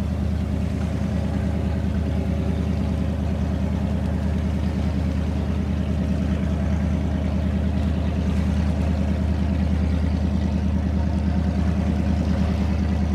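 Powerboat engine idling with a steady, low, pulsing exhaust rumble.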